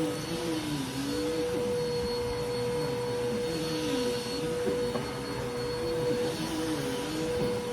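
Dirt Devil Vigor cyclonic pet vacuum cleaner running: a steady motor and airflow noise with a constant whine and a lower tone that rises and falls every second or so.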